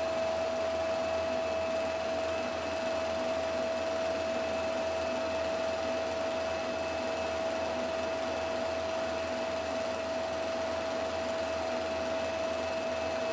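Film projector running: a steady motor and fan whir with a constant hum.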